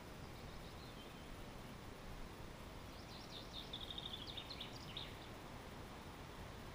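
A small songbird sings one short phrase about three seconds in: a few quick high notes, a rapid trill, then some closing notes. It sits over a steady faint background hiss.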